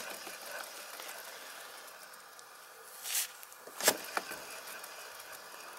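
Suzuki Let's 4 scooter wheel spinning freely on newly fitted wheel bearings, nearly silent: only a faint steady whir, with none of the rumbling that the worn bearings made. A brief swish comes about three seconds in, then a sharp click and a lighter one just before four seconds.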